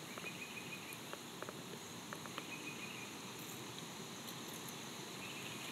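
Quiet outdoor ambience: a steady hiss with short, high chirping trills at the start, about two seconds in and near the end, and a few faint light clicks.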